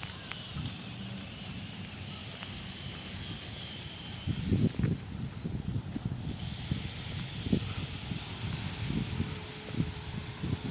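A chainsaw whining high in pitch, revving twice: it wavers, then drops off, then revs up sharply, holds and eases off again. Low rumble with a few thumps runs beneath it.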